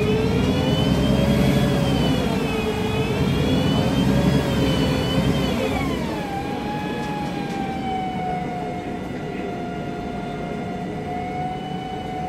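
MAN Lion's Classic city bus under way, heard from inside the cabin: the Voith DIWA automatic gearbox whines over the CNG engine's rumble. The whine climbs and wavers while the bus pulls, then drops in pitch about six seconds in and holds steady at a lower note.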